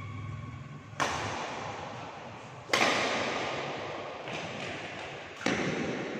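Badminton racket strikes on a shuttlecock during a rally: three sharp hits, about a second in, near three seconds and about five and a half seconds in, each echoing on in the hall.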